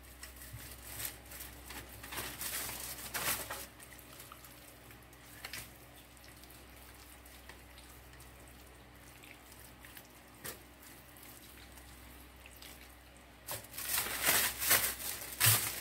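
Hands rubbing oil and dry spices into a raw turkey leg on parchment paper, making soft wet rubbing and handling noises in short bursts. It is quiet through the middle and loudest in the last couple of seconds.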